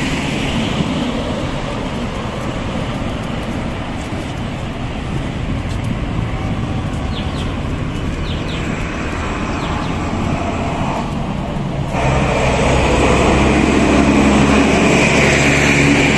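Road traffic: a steady wash of passing cars. About twelve seconds in, the sound changes abruptly to a louder, steadier low engine hum, as of a vehicle running close by.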